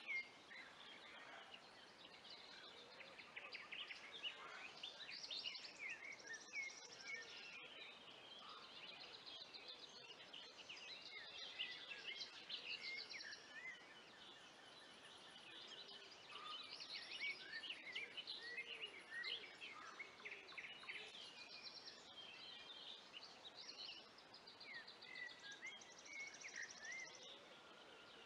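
Several songbirds singing at once, a faint, continuous mix of overlapping trills, chirps and whistled phrases. A brief knock sounds right at the start.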